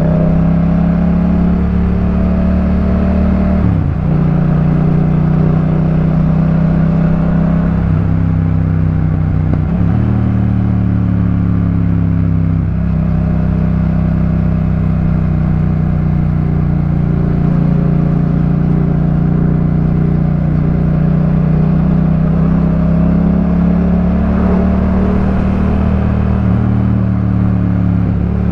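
The 2018 Yamaha MT-07's parallel-twin engine running through a Jeskap K4 full exhaust while riding at fairly steady revs. The engine note has a few brief dips: about four seconds in, around nine to ten seconds, and around thirteen seconds.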